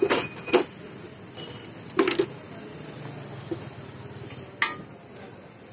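Flat metal spatula clinking and scraping on a dosa griddle as potato masala is spread over the dosa: a few sharp, irregularly spaced clinks.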